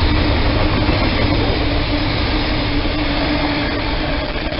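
Freight train of flat wagons loaded with lengths of rail rolling past at speed: the steady rumble and clatter of wheels on the track, with a faint steady tone underneath, easing off slightly towards the end.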